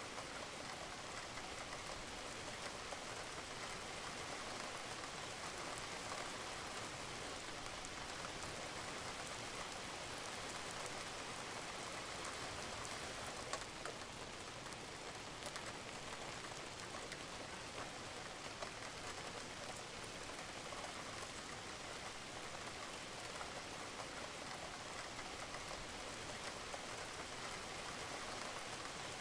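Steady rain falling on a roof, a constant hiss dotted with many small drop impacts.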